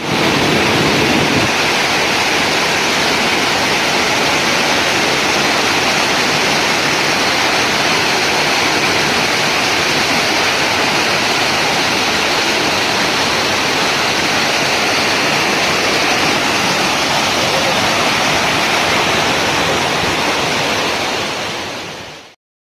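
Fast stream water rushing and splashing over rocks: a steady, loud rush that fades out near the end.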